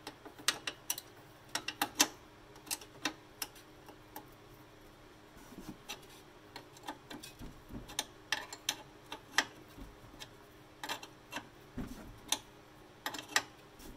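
Open-end wrench clicking against a loosening 14 mm nut and the 5 mm Allen key that holds its stud, as it is worked back and forth in short strokes. The sound is irregular, sharp metal clicks, some in quick clusters.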